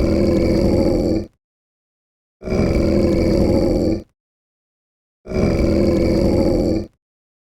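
Wolf growling: the same rough growl of about a second and a half repeated three times, with dead silence between each.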